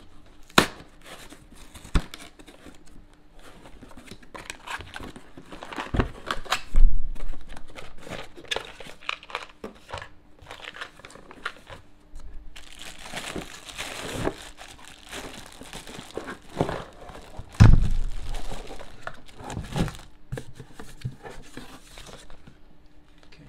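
Cardboard box being opened and unpacked by hand: flaps tearing and scraping, and crumpled packing paper crinkling, with many small clicks and rustles. Two heavier thumps of cardboard being handled, about a third of the way in and again past the middle.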